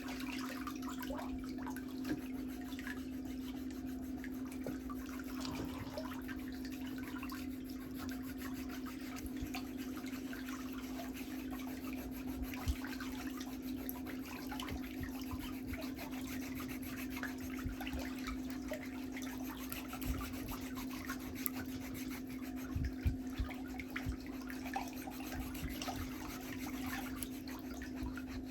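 Steady low hum under a continuous fine scratching and rubbing of pedicure tools working on toenails, with occasional small sharp clicks, a few of them clustered near the end.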